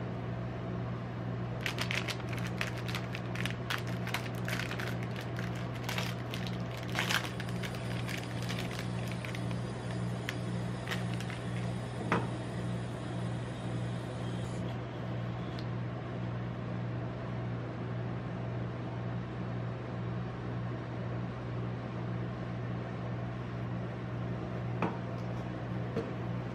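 The steady low hum of a rolled-ice-cream machine's cold plate refrigeration unit. About two seconds in, the plastic wrapper of a Magnum ice cream bar crinkles and tears open for around five seconds. There is a single sharp tap about twelve seconds in.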